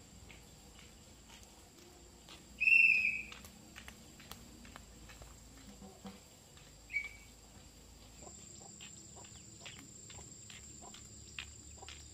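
Countryside ambience: a steady high insect drone with scattered light clicks, and a bird gives a short, loud call about three seconds in and a softer one at about seven seconds.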